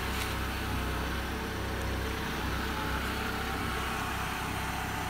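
Mitsubishi Lancer's engine idling steadily, a low even hum.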